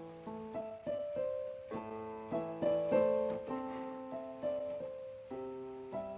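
Background piano music, a gentle melody of struck notes and chords.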